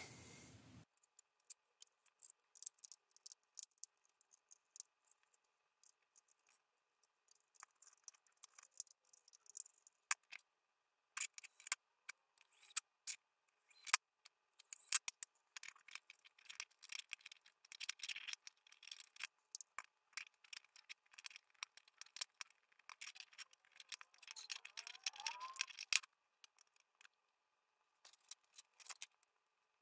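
Faint scattered clicks, taps and scrapes of small metal parts being handled as a Lepy LP-V3s mini amplifier is put back together: the circuit board fitted back into its metal case, and small screws and nuts driven in. The clicking is sparse at first and busiest through the middle and latter part.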